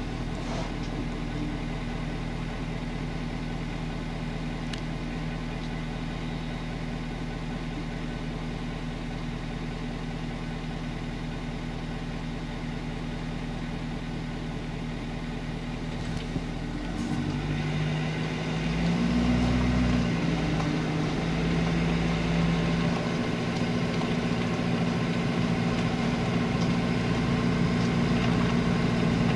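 Vehicle engine idling steadily, then a little past halfway it picks up and runs louder as the vehicle creeps forward, with a brief rise in pitch a few seconds later.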